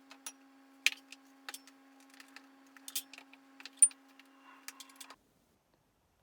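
Light clicks and clinks of kitchen utensils against a mixing bowl as dry ingredients are added and mixed, scattered and irregular over a faint steady hum. The sound cuts off abruptly about five seconds in.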